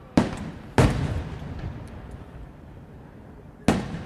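Aerial firework shells bursting overhead: three sharp booms, two in quick succession near the start and a third near the end, each dying away in a rumbling tail.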